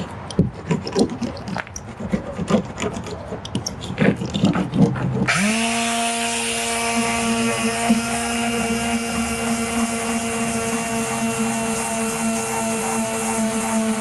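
A small ribbed fiberglass roller worked over wet resin and fiberglass gives irregular clicks and scrapes. About five seconds in, a corded electric detail sander comes in and runs with a steady whine and hiss, sanding down the cured fiberglass patch.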